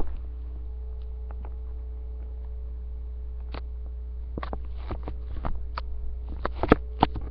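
Steady low electrical hum from a webcam microphone. From about three and a half seconds in, scattered soft clicks and rustles of handling and movement come through, growing denser toward the end, with one sharper click the loudest.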